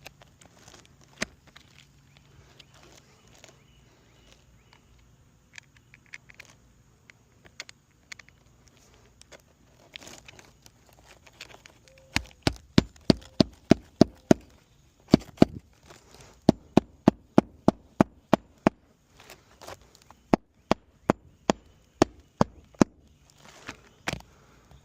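Hammer driving roofing nails through shingles: several runs of sharp, ringing blows, about three or four a second, starting about halfway in. Before them, faint crackling and clicking of shingles being handled.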